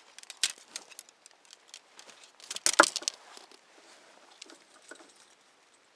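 DAC aluminum tent poles being handled and their shock-corded sections clicking together: a run of light metallic clicks and clacks, with a louder clatter about two and a half seconds in, then fainter ticks.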